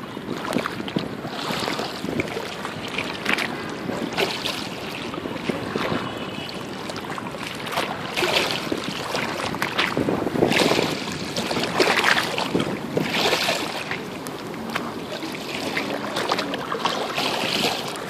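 Choppy sea waves slapping and sloshing against a shoreline embankment, in irregular splashing surges every second or two.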